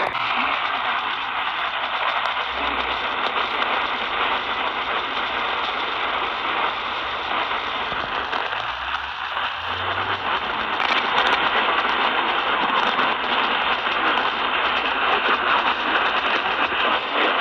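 Radio static: a steady hiss of noise with no voice, as from a weak radio signal, with a faint steady tone underneath.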